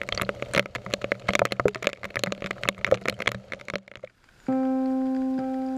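Rapid, irregular crackling clicks over a low steady hum for about four seconds, cutting off abruptly. About half a second later a sustained, ringing musical tone begins as background music.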